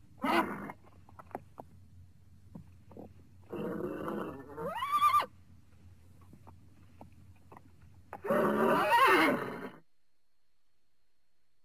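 A horse whinnying: a short call at the start, a call rising in pitch about five seconds in, and a longer wavering call near the end, with light knocks between the calls.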